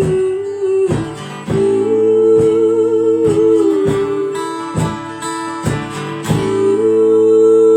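Live acoustic guitar music: chords strummed about once a second, with long notes held and ringing over them as the song builds to its close.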